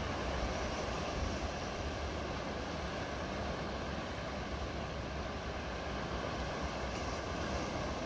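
Steady wash of sea surf breaking and foaming over black volcanic rocks, with wind buffeting the microphone as a low rumble underneath.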